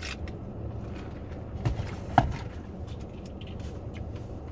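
Sipping soda through a straw from a paper fountain cup, with light handling clicks and one sharp tap about two seconds in. A steady low hum of the car cabin runs underneath.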